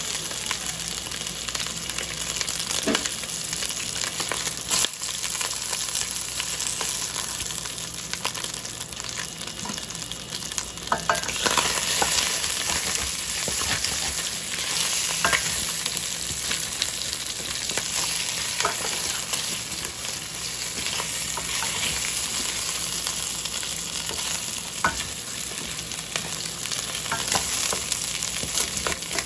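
Chicken pieces frying in hot olive oil in a pan: a steady sizzle with scattered crackles and pops, growing louder about eleven seconds in.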